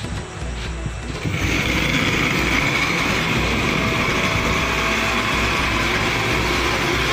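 Electric blender with a steel jug starting up about a second in and then running steadily at full speed, blending juice.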